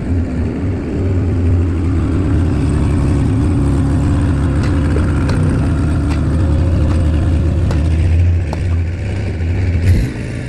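Skid steer engine running steadily while working, with a few short knocks mixed in.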